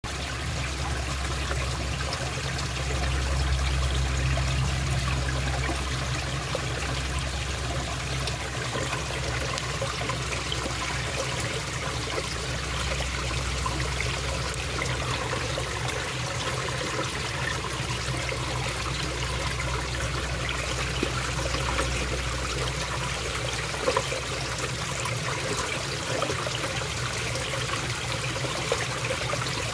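A small stream of water trickling down a rock crevice into a shallow pool, splashing and bubbling steadily over a low rumble.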